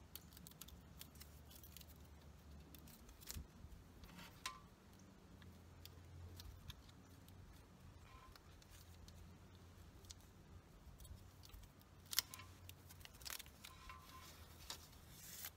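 Faint, scattered clicks and crinkles of a plastic emblem being handled while the backing is peeled off its 3M adhesive tape, over a low steady hum. The clicks are a little louder about three and four seconds in and again near the end.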